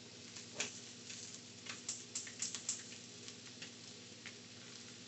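Tilapia fillets searing in butter and oil in a very hot nonstick skillet: a faint steady sizzle with scattered small pops and crackles, busiest in the first few seconds.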